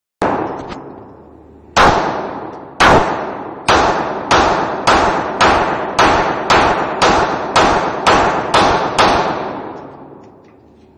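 Handgun firing: a single shot, then after a pause about a string of thirteen shots at roughly two a second, each echoing with a long ringing tail.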